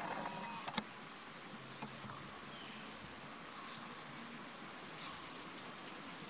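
High, steady buzzing of forest insects, with one sharp click about a second in.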